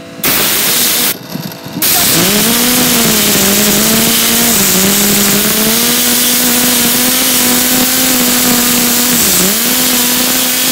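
Compressed air blasting from an air compressor nozzle: a short burst, then a steady loud hiss from about two seconds in. Over it a humming tone rises, holds and dips briefly twice.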